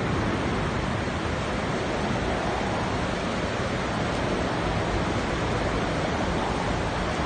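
Strong wind from a nearby tornado rushing steadily and buffeting the phone's microphone.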